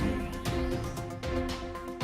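Background music: sustained tones over a steady beat of drum strikes about twice a second, opening with a low falling swoop.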